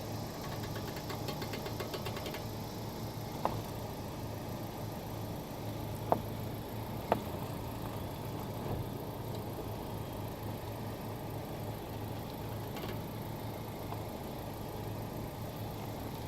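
Abnormal sharp pops from the steering of a 2018 Honda Accord Sport 1.5T over its turbocharged four-cylinder engine idling steadily. There is one pop a few seconds in, two louder pops about a second apart near the middle, and a couple of fainter ones later.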